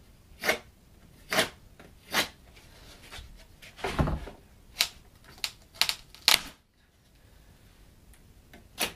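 About nine sharp wooden knocks and cracks at uneven spacing, one duller and heavier about four seconds in: thin wooden shim strips being worked into the door frame's gap and snapped off.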